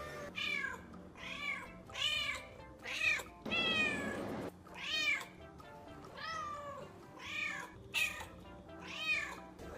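A cat meowing again and again, about a dozen short meows roughly one or two a second, with one longer, drawn-out meow a few seconds in.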